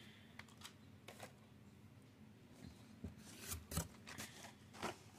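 Blister-carded Hot Wheels cars being lifted out of a cardboard case: faint crinkling and clicking of plastic blisters and card, loudest about three to four seconds in and again near the end.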